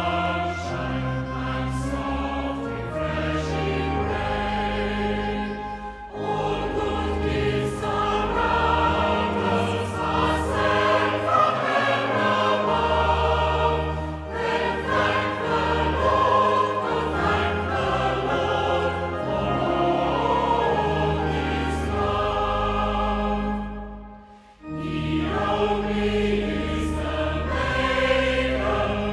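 Choral music: a choir singing sustained chords over a low bass, with a brief pause about three quarters of the way through.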